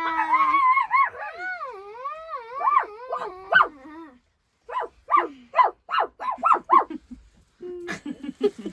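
Dog howling, a long held note that breaks into wavering, bending howls, then about seven short yips in quick succession.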